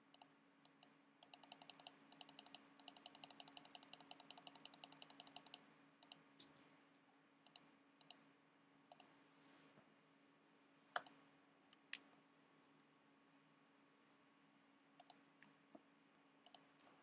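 Faint clicking at a computer: a quick, even run of about eight clicks a second for some four seconds, then scattered single clicks.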